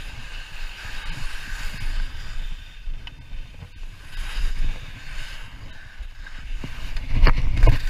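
Skis sliding and scraping over snow during a downhill run, with wind buffeting the body-worn camera's microphone; the wind rumble grows louder near the end.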